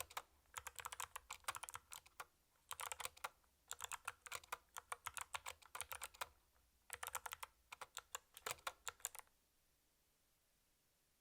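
Fast typing in bursts on a CU65 mechanical keyboard with Kailh Box White clicky switches, each keystroke a crisp click. The typing stops about nine seconds in.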